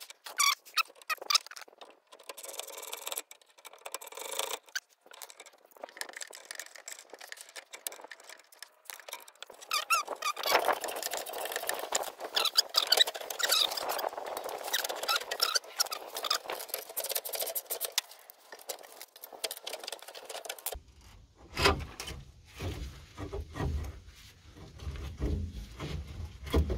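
Screw-type coil-spring compressor being wound down on a Lada 2107's rear coil spring: metal squeaking and clicking from the tool and the spring, densest in the middle. Near the end come louder knocks and clunks as the compressed spring is worked free.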